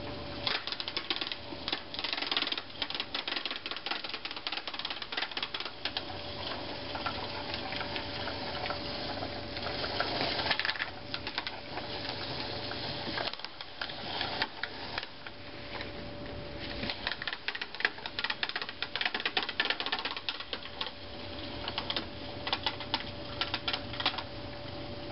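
Walk-behind broadcast spreader pushed over bare soil while sowing grass seed, its gearing and spinner clattering in a rapid run of clicks that swells and fades as it passes.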